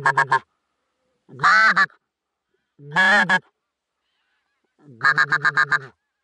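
Goose honking in four short bursts of rapid calls, about one and a half seconds apart, the last burst the longest.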